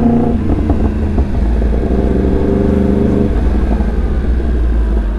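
Yamaha R1M's crossplane inline-four with a full-system exhaust, running steadily at low revs with a low rumble.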